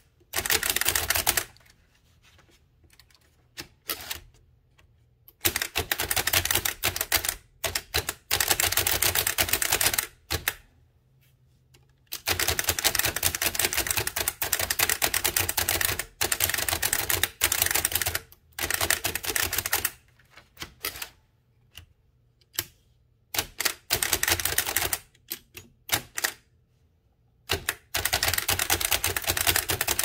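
Antique Bennett typewriter, a tiny single-element machine with a type cylinder, typed at speed: quick runs of key clacks broken by several pauses of one to four seconds.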